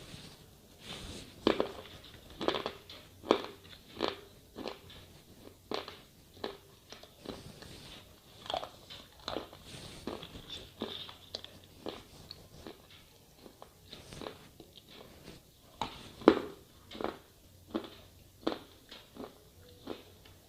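Slate pencil being bitten and chewed: a run of sharp, irregular crunches, about one every half second to a second.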